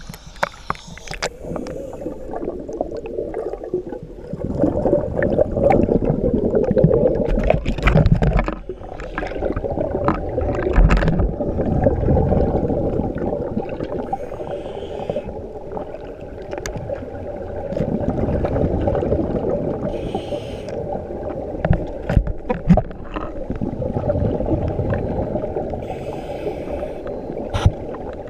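Scuba divers breathing through their regulators, heard underwater: a rushing burst of exhaled bubbles every several seconds, with scattered sharp clicks and knocks in between.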